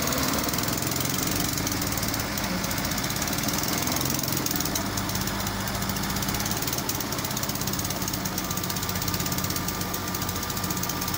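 ACE F15 pick-and-carry crane's diesel engine running steadily. A faint steady high whine joins in near the end.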